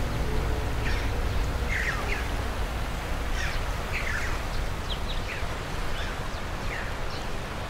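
Birds calling outdoors: short, high calls that drop in pitch, every second or so, over a steady low rush of outdoor ambience.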